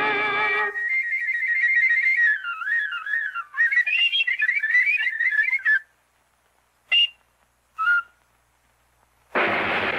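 Cartoon soundtrack: a short brass blast, then a high, whistle-like wind-instrument melody of quick trills and wavering pitch that runs about five seconds. Two short peeps follow about a second apart, and a loud brass chord comes in near the end.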